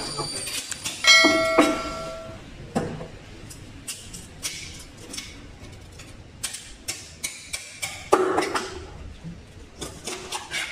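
A knife cutting through fish on a wooden cutting board, with scattered short taps and knocks of the blade. About a second in there is a sharp metallic clang that rings for about a second. Near the end a louder rough scrape of the fish being cut and moved on the board.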